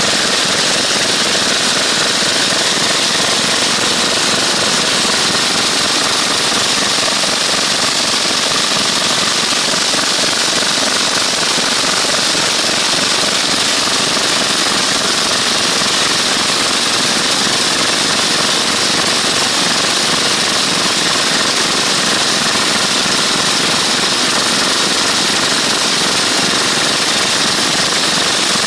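Outrigger boat's engine running loudly and steadily while under way, over the rush of water and spray along the hull.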